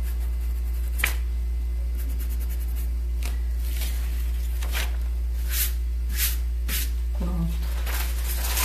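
Dry paintbrush stroking and dabbing paint over a stencil on fabric: a sharp tap about a second in, then a series of soft, short brushing strokes. A steady low electrical hum runs underneath.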